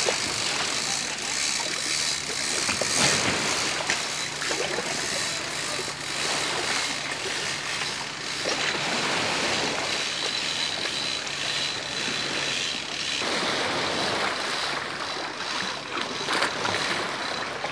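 Shallow seawater lapping and sloshing, with wind on the microphone. A faint steady low hum underneath stops about two-thirds of the way through.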